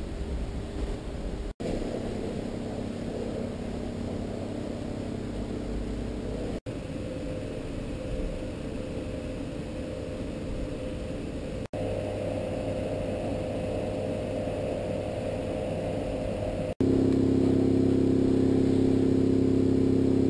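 Steady droning hum over hiss, broken by short dropouts about every five seconds, each section at a different pitch. The last section, from about seventeen seconds in, is louder.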